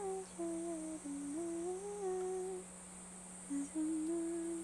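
A woman humming a slow tune with her mouth closed, holding each note and stepping between them, with a short pause just past the middle.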